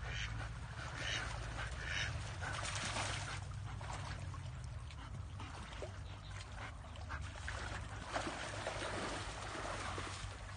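Ducks quacking repeatedly in short bursts, with a steady low hum underneath.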